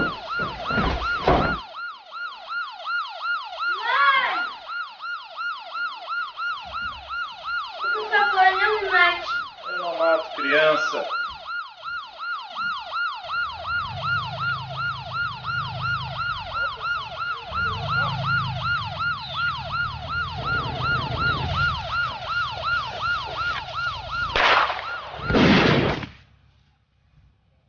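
Police siren wailing in a fast yelp, its pitch rising and falling about three times a second, with a low rumble underneath through the middle; it cuts off suddenly near the end.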